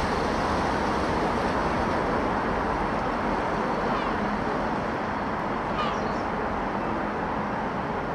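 Diesel multiple unit running away from the platform, a steady rumble of engine and wheels on rail that fades slowly as it recedes. Two brief high chirps come about four and six seconds in.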